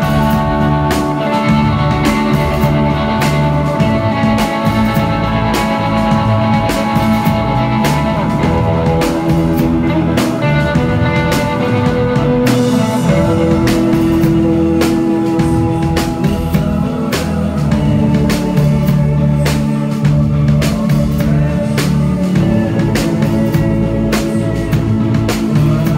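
Live rock band playing loud: electric guitars over a steady drum-kit beat, with a man singing into the microphone.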